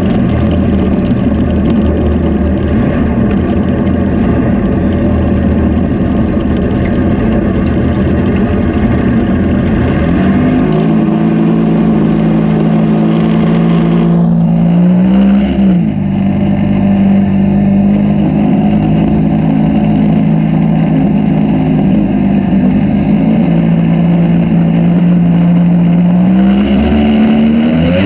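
Outboard jet motor on a jon boat running at speed, with rushing water. About ten seconds in its pitch climbs and settles into a steady drone; around the middle it dips briefly and climbs back, and near the end it rises again.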